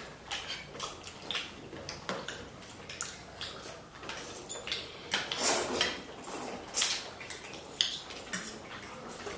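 Eating chicken noodle soup: irregular clinks and scrapes of cutlery against a bowl, with a few longer slurps or swishes in the middle.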